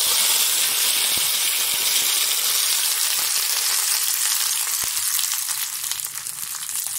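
Fresh curry leaves sizzling hard in hot sesame oil with mustard seeds and dried red chillies, the spluttering of a tadka (tempering), with an occasional crackle. The sizzle is at its fullest as the leaves go in and eases slightly toward the end.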